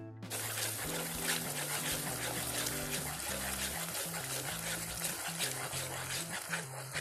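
Hot caramel sauce bubbling and sizzling in a saucepan as an ingredient is stirred in. It starts suddenly a moment in and carries a dense crackle, with background music playing under it.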